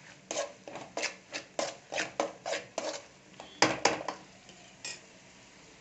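Metal spatula scraping and knocking against a metal pan while stirring and sautéing onion-tomato masala until the oil separates, about two or three strokes a second. The strokes stop about four seconds in, after the loudest pair, with one last knock shortly after.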